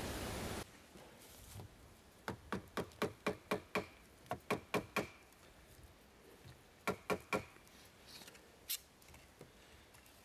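ESEE Laser Strike knife blade shaving curls down a wooden stick to make a feather stick: a quick run of about a dozen scraping strokes, roughly four a second, then three more strokes and a single sharp click. A brief rush of wind-like noise cuts off abruptly under a second in.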